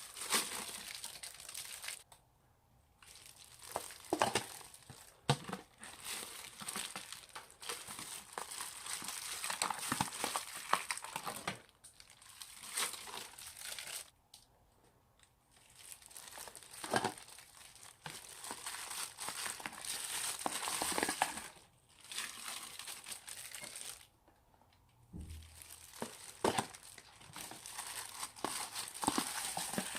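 Old slime being squeezed and stretched by hand, giving irregular crinkly crackles and small clicks, with short pauses about 2, 14 and 24 seconds in.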